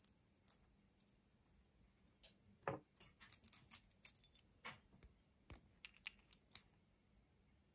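Faint, scattered clicks and taps of small metal parts being handled and fitted together while a welding machine's gas solenoid and connector are reassembled; the loudest knock comes a little under three seconds in.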